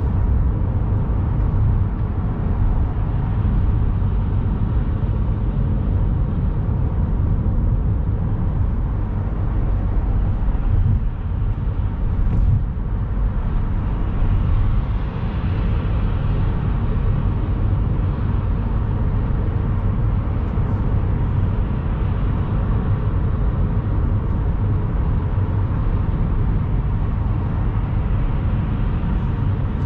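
Steady low road rumble inside a car at expressway speed: tyre and engine noise heard through the cabin.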